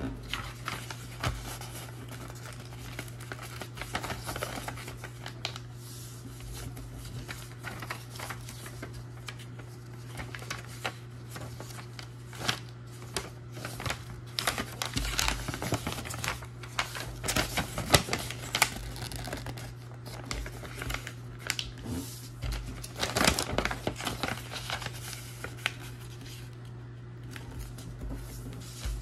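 A sheet of paper being folded and creased by hand: irregular crisp rustles, crinkles and small taps as the folds are made and pressed down, busiest in the middle, over a steady low hum.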